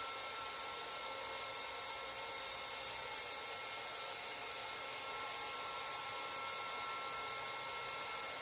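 Tuxing 4500 psi PCP air compressor running steadily: an even whirring hiss with several thin, steady high whines over it.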